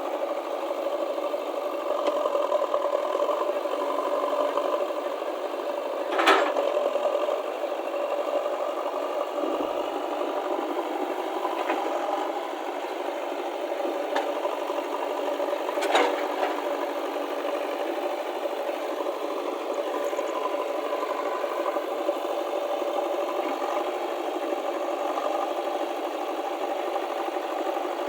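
JCB backhoe loader's diesel engine running steadily with a rattle, with two sharp knocks, about six seconds in and again about sixteen seconds in.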